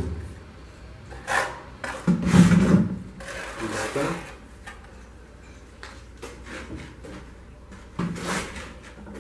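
A hollow masonry block being dunked into a galvanized metal tub of water, lifted out and lowered back in to wet it before laying: water splashing, with knocks and scrapes of the block against the tub. It comes in a few separate bursts, the loudest about two seconds in.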